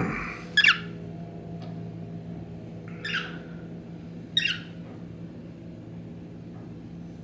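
Cockatiel giving three short, sharp chirps, about half a second in, at about three seconds and at about four and a half seconds, over a steady low hum.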